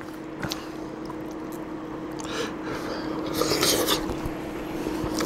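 A person slurping noodles, once briefly a little over two seconds in and again more loudly around three to four seconds in, with a light click of chopsticks near the start. A steady low hum runs underneath.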